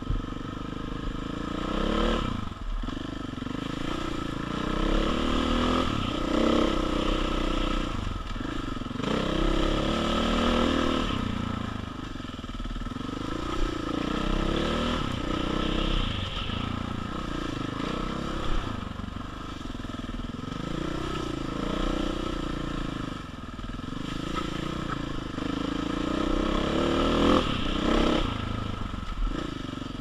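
KTM 500 single-cylinder four-stroke dirt bike engine running hard over a rocky trail, its pitch rising and falling again and again with the throttle. Occasional sharp knocks and clatter come from the bike hitting loose rocks.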